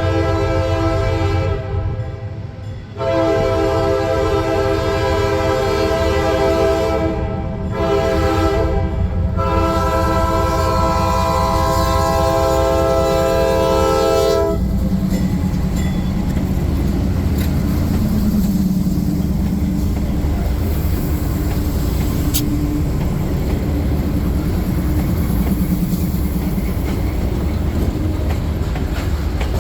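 Diesel freight locomotive's air horn sounding the crossing signal: long blasts with a short one between. Then the train rumbles past with its diesel engine running and wheels clicking over the rail joints.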